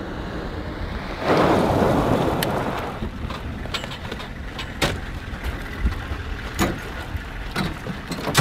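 A military vehicle driving over a gravel track: a loud swell of tyre and engine noise about a second in that fades over the next two seconds, then a steady rush with scattered knocks and clicks.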